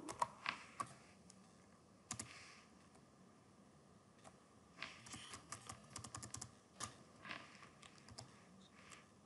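Faint computer keyboard typing: a few isolated keystrokes in the first couple of seconds, then a quicker run of taps through the middle, thinning out toward the end.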